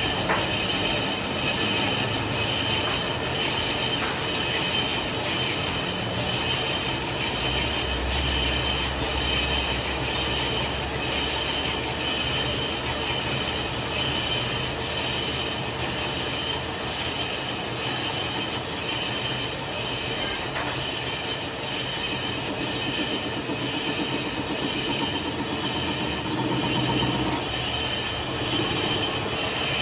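A steady, loud, high-pitched metallic squeal from metalworking, holding one pitch over a rough grinding noise; it changes and drops a little about 26 seconds in.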